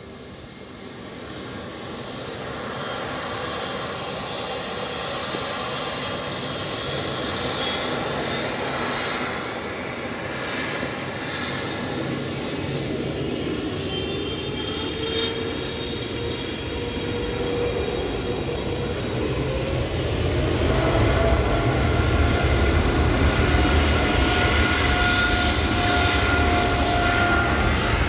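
Boeing 777-300ER's two GE90-115B turbofan engines spooling up to takeoff thrust on the takeoff roll. The jet noise builds steadily, with a whine rising in pitch. It grows markedly louder about twenty seconds in.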